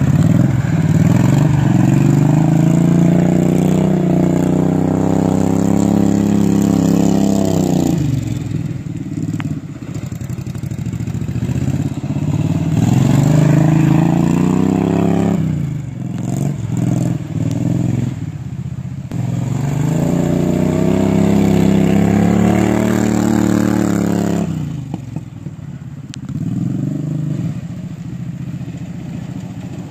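Riding lawnmower's V-twin engine revved hard and held at high speed three times, each run ending in a sudden drop back to lower revs, as the mower is driven and drifted.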